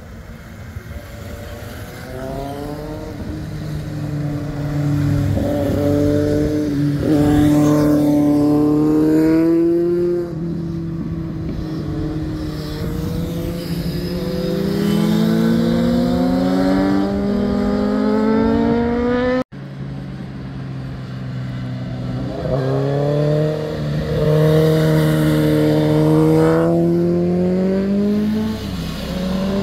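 Motorcycles passing one after another through a hairpin bend, each engine note rising as the bike accelerates out of the corner, with short breaks between the rising notes as the rider shifts up. The sound cuts off abruptly for an instant about two-thirds through.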